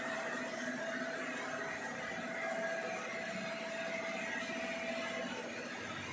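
A steady mechanical whir or hum with a constant mid-pitched tone and no distinct knocks.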